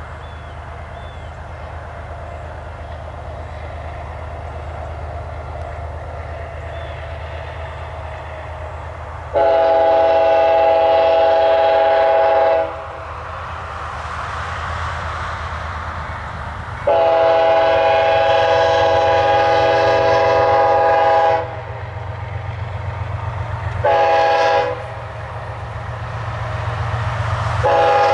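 Diesel freight locomotives approaching, their low rumble growing louder, then the lead locomotive's multi-chime air horn sounding the grade-crossing signal: two long blasts, a short one, and a final long one starting near the end.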